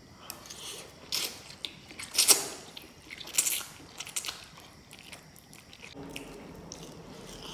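Close-up eating sounds: a man slurping forkfuls of spicy instant noodles and chewing, with several loud, hissing slurps in the first few seconds, the loudest about two seconds in. The last part is quieter, steady chewing.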